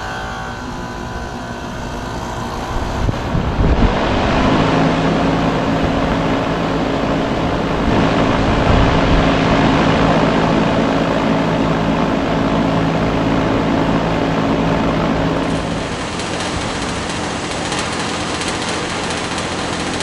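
A 2010 Payne PA13 central air conditioner's outdoor condenser starting up: the running noise builds over the first few seconds as the fan spins up, then settles into a steady whooshing run with a low hum. A little past three-quarters of the way in, the hum stops and a different outdoor unit's steady running noise takes over.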